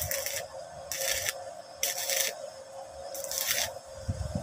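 Stick-welding arc from a Ladderman MMA-300A mini inverter welder crackling in four short bursts of about half a second each, with pauses between, over a steady hum.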